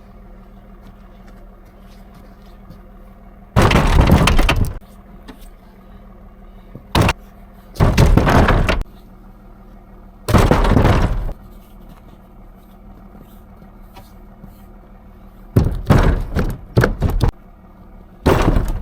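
Heavy logs dropped onto a load one after another: a loud wooden crash about every few seconds, several in quick succession near the end, over a steady engine hum.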